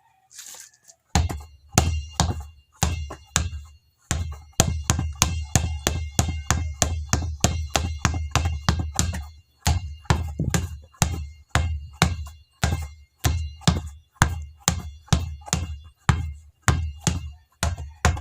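Basketball dribbled at a steady pace, about two to three bounces a second, starting about a second in; each bounce is a deep thump with a ringing ping.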